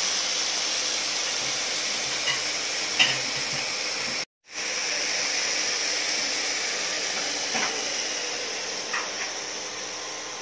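Marinated pork loin pieces sizzling steadily in oil in a nonstick frying pan as they brown, with a few small pops. The sizzle cuts out for a split second about four seconds in.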